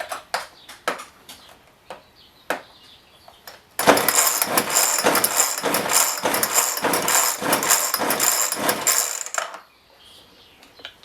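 A Homelite 3514C two-stroke chainsaw engine catches about four seconds in and runs loudly with a pulsing beat for about six seconds, then cuts out suddenly. A few sharp knocks come before it. This is a saw that will start but won't keep running.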